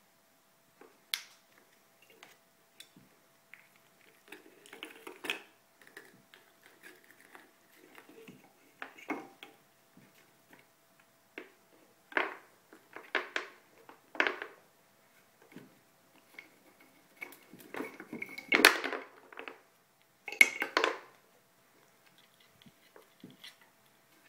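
An African grey parrot works the pieces of a wooden and plastic peg toy with its beak, making irregular knocks, clicks and short clatters. The loudest clatters are bunched in the second half.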